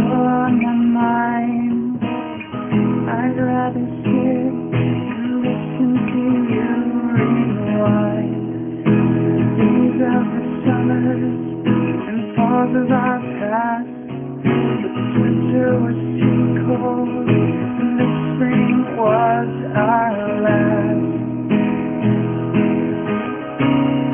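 Acoustic guitar strummed in a live song performance, with a man singing over it.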